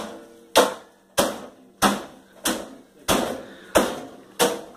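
Hammer striking ice to crush it, seven sharp blows at an even pace of a little under two a second.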